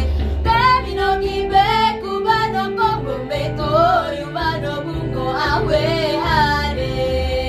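Female vocal group singing in harmony: several voices hold steady notes while a higher melody line bends and ornaments above them.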